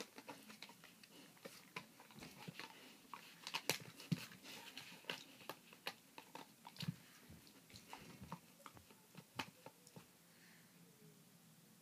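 German Shepherd puppy gnawing a chew bone: irregular crunching and clicking bites with its teeth, thinning out near the end.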